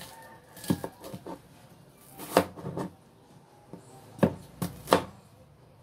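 Kitchen knife slicing a red onion on a plastic cutting board: about eight sharp knocks of the blade hitting the board, irregularly spaced, some in quick pairs.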